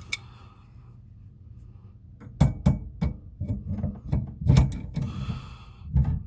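A wrench and metal fittings knocking and clinking under a kitchen sink. An irregular run of sharp knocks starts about two seconds in.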